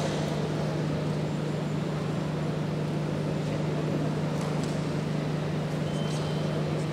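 Indoor venue ambience: a steady low hum under a continuous noisy background, with a few faint clicks.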